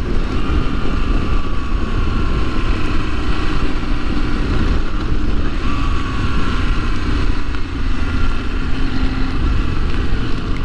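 Motorcycle riding at a steady speed: heavy wind rumble on the microphone over the engine's hum, whose pitch drifts slightly up and down.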